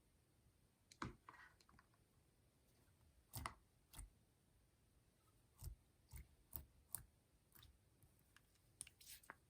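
Slime being pressed and stretched by hand: faint, scattered clicks and small pops, about a dozen at irregular intervals.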